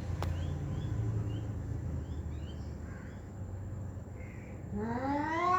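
Domestic cat's long, drawn-out yowl starting near the end, rising in pitch and then holding: a territorial cat-fight caterwaul at a rival cat. Before it, only a low background rumble with a few faint high chirps.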